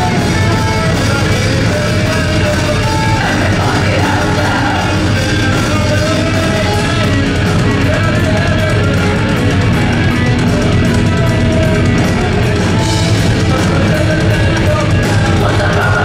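Live rock band playing: electric guitars, bass guitar and drum kit, loud and steady throughout.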